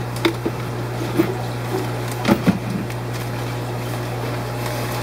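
Steady low mechanical hum of running aquarium equipment such as pumps and blowers, with a few light knocks and rustles from handling.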